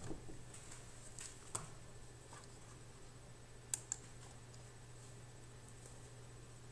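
A few light clicks at a computer over a low steady hum and quiet room tone. The sharpest are two clicks in quick succession about four seconds in.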